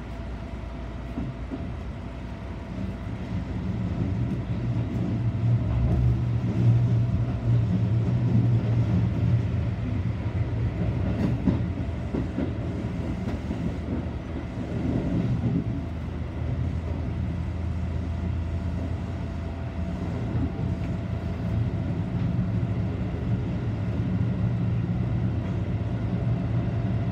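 Seibu Shinjuku Line electric commuter train running, heard from inside at the front of the car: a steady low rumble of wheels on the rails with occasional clacks from the track. It grows louder over the first few seconds.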